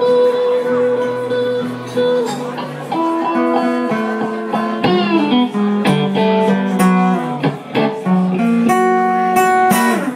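Slow blues on electric and acoustic guitar: the electric guitar plays lead lines with held, bending notes over the acoustic guitar's accompaniment, with no singing.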